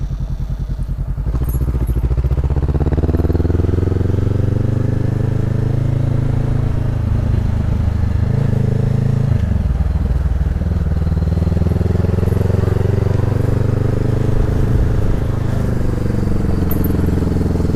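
Honda CB 500F's parallel-twin engine through a Jeskap aftermarket exhaust, the bike getting louder as it pulls away about a second in and then accelerating. The pitch climbs, drops sharply at an upshift about nine seconds in, and climbs again before another drop near the end.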